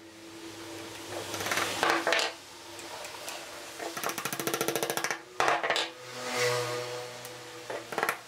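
Small steel hammer tapping wooden dowel pegs into holes in a pine board: scattered knocks, a quick run of light taps about four seconds in, then a few harder blows.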